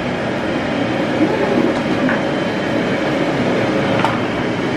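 Pet grooming blow dryer running steadily, a continuous rush of air from the nozzle as it dries a puppy's coat.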